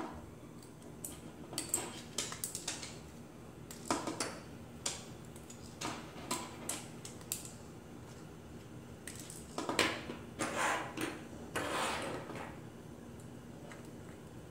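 Jointed 3D-printed plastic finger segments of a Modular Flexy Hand 2 prosthetic hand clicking and clacking as they are handled and taken apart, in scattered clusters of small sharp clicks, with a few longer scraping sounds about two-thirds of the way in.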